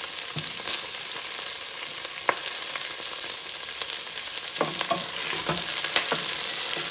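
Whole chillies frying in hot mustard oil in a stainless steel pot, a steady sizzling hiss. A wooden spoon knocks once against the pot about two seconds in, then stirs the chillies, knocking and scraping several times near the end.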